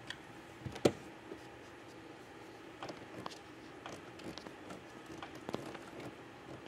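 Hands working with a tool and cable fittings in a boat's splash well: one sharp click about a second in, then scattered light clicks and knocks.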